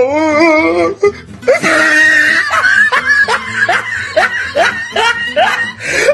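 A girl laughing hard, a quick run of short rising whoops about two a second, with music playing underneath.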